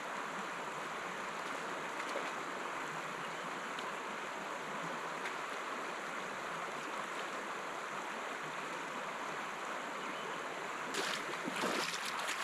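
Shallow river water flowing steadily over a riffle, an even rushing hiss. A few louder splashing noises come near the end.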